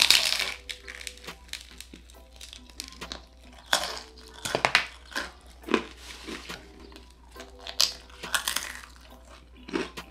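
Close-up chewing of a bite of thick-crusted bakery pizza, with irregular crunchy bursts, the loudest right at the start, over steady background music.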